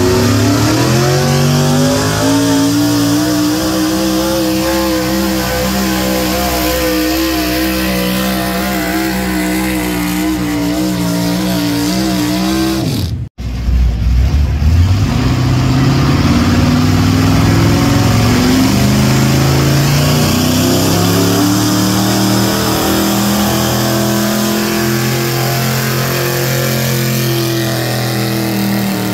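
Pro street gas pulling trucks' engines at full throttle, dragging a pulling sled. The first engine climbs in pitch over the first few seconds and holds at high revs. The sound cuts out abruptly about halfway, then a second truck's engine climbs in pitch and holds.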